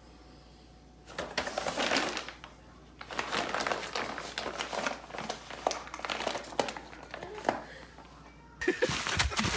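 Brown paper bag crinkling and rustling as a cat pushes its head inside it and moves about, starting about a second in and going on in two long stretches with a short pause between.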